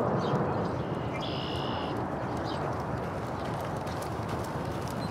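Hoofbeats of a racehorse galloping on a dirt track, over a steady low background rumble. A brief high-pitched chirp sounds about a second in.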